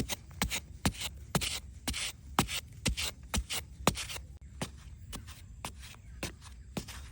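A run of sharp knocks and clicks, roughly two a second, with short scraping sounds between some of them, easing off after about four seconds.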